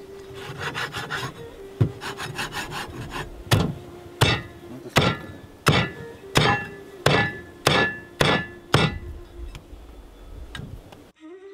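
A meat cleaver chopping through a raw chicken onto a wooden cutting board. There are lighter knocks at first, then from about three seconds in a run of about nine heavy chops, roughly one every two-thirds of a second.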